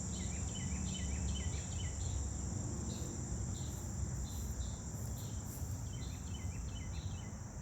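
Crickets trilling in a steady, high-pitched chorus, with runs of short chirps during the first two seconds and again near the end, over a low rumble.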